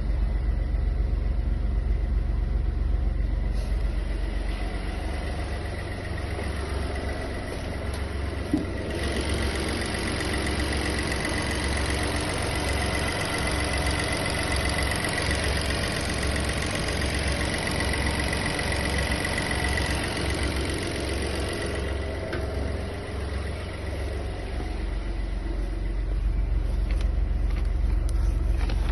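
1.3-litre turbocharged three-cylinder petrol engine idling steadily. A higher whine and hiss join in for about thirteen seconds in the middle.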